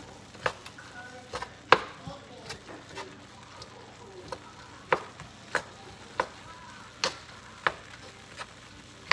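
Wooden spatula knocking and scraping against a wok as day-old rice is stirred and broken up, with a faint steady sizzle of frying underneath. The knocks come irregularly, about one every half second to a second, the loudest a little under two seconds in.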